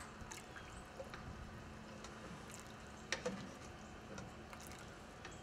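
Soup being stirred with a long paddle in a stainless steel stockpot: faint liquid swishing with a few light clicks and knocks of the paddle against the pot, the clearest about three seconds in.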